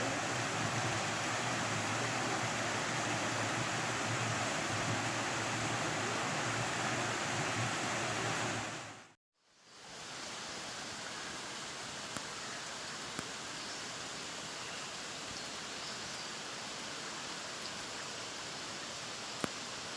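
Rushing water of a forest stream or waterfall, a steady even noise that fades out about nine seconds in. After a moment of silence a softer steady rush of water returns, with a few faint clicks.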